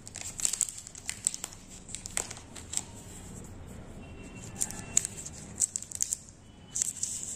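Thin plastic protective wrapper being peeled and slid off a new smartphone, crinkling in irregular small crackles.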